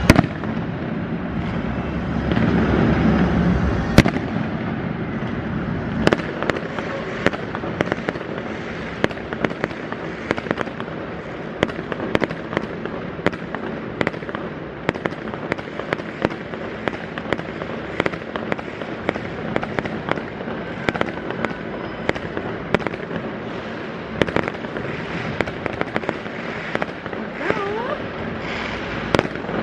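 Fireworks display: continuous crackling and popping of bursting shells, with loud bangs at the very start and about four seconds in, and a short rising whistle near the end.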